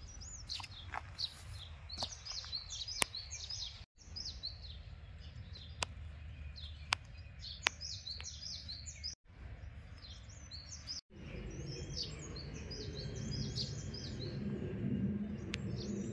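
Small birds chirping repeatedly over a low outdoor rumble, with occasional sharp clicks. The sound drops out briefly three times at abrupt cuts.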